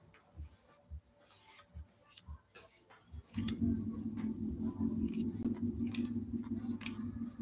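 Trading cards being flicked and slid through the hands, light irregular clicks a few times a second. About three seconds in, a steady low hum starts up and carries on, louder than the cards.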